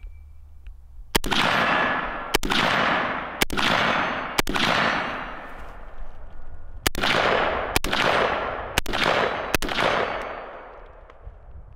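Eight shots from a 5.56 mm M16A1 rifle, each followed by a long echo. The first four come about a second apart from kneeling; after a pause of about two and a half seconds for the change to standing, four more follow at a slightly quicker pace.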